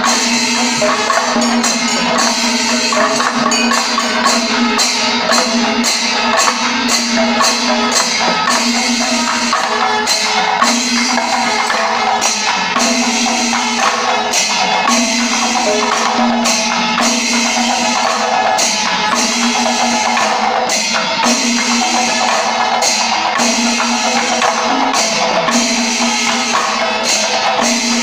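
Panchavadyam temple ensemble playing loudly, with many timila hourglass drums beaten in a fast, continuous rhythm and steady tones sounding under the drumming.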